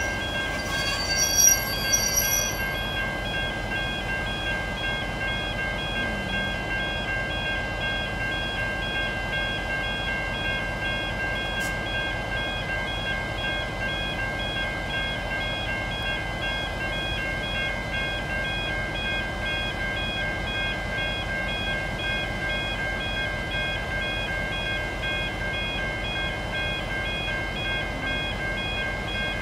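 V/Line N-class diesel-electric locomotive N460 rolling slowly, its engine a low steady rumble, with a short loud high-pitched squeal about one to two seconds in. Over it runs a continuous shrill electronic alarm tone that pulses rapidly.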